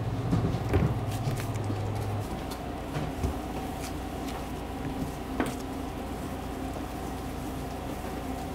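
Steady mechanical hum of kitchen equipment, with a lower drone that stops about two seconds in. A few soft knocks and taps come from gloved hands portioning and rolling bun dough on the counter.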